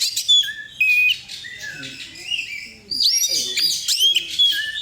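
Oriental magpie-robin (kacer) singing a rapid, varied song of loud whistles, slurred notes and chirps, the kind of song used as a lure call to set other kacer singing.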